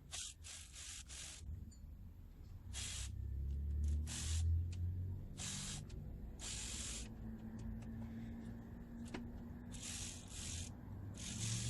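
Hand ratchet wrench ratcheting in about a dozen short bursts as it backs out the water pump bolts.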